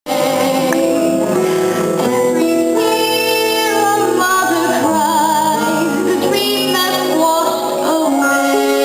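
Young female voices of a youth theatre cast singing a musical-theatre song with instrumental accompaniment, the notes held and wavering.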